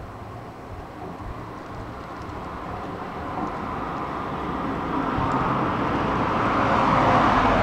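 Electric powered wheelchair driving toward the listener over paving stones: its motor and tyres grow steadily louder as it approaches.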